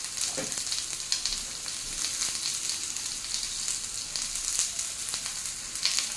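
Julienned onions sizzling in hot oil in a frying pan: a steady hiss scattered with small crackles.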